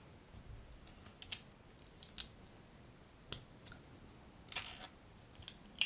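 Small plastic LEGO bricks clicking as they are handled and pressed together: a few sparse, sharp clicks and one brief scrape a little over four seconds in.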